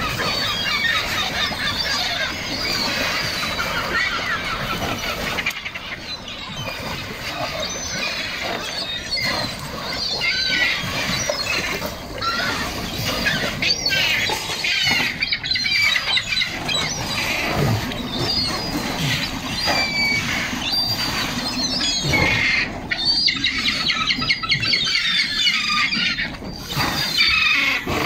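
A large flock of gulls calls over and over at once, a constant high squealing and squawking with wings flapping. Now and then sea lions crowding in the water give a low grunt.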